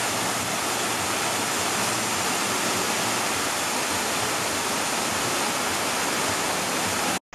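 Spring-fed waterfall pouring over a wide stone wall into a shallow pool: a steady, even rush of falling and splashing water. It cuts off suddenly just before the end.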